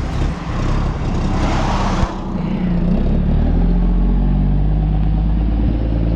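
Heavy truck's diesel engine pulling away, with a short hiss about a second and a half in, then a steady, louder engine note from about three and a half seconds.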